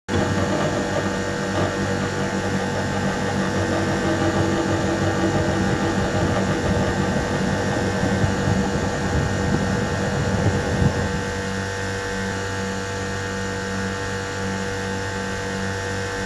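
Daikin R125FUY1 floor-standing air conditioner starting up: a steady mechanical hum with several steady tones cuts in abruptly. It runs rougher and a little louder for about eleven seconds, then settles to a steadier, slightly quieter hum.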